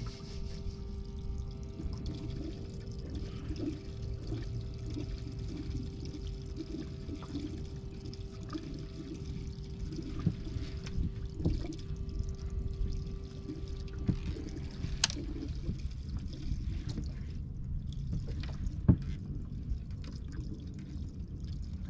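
Water sloshing and trickling around a small fishing boat, with a steady hum that cuts off about fifteen seconds in, followed by a sharp click and a few soft knocks.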